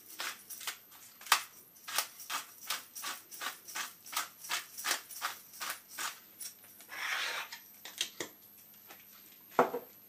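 Pepper mill being twisted to grind pepper: a run of quick crunching clicks, about four a second, for six or seven seconds. A single louder knock comes near the end.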